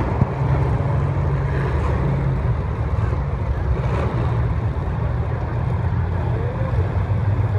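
Racing engines running on track, a steady low rumble.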